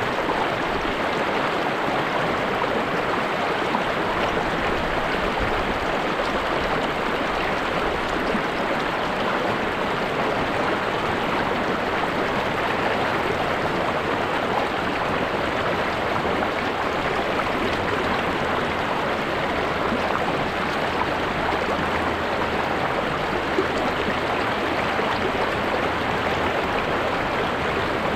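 A river or stream flowing over rocks, a steady rushing and gurgling of water.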